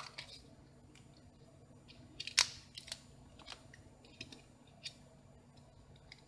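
Scattered light plastic clicks and taps from a Samsung Galaxy S3's body and battery being handled and the battery lifted out, with one sharper click about two and a half seconds in.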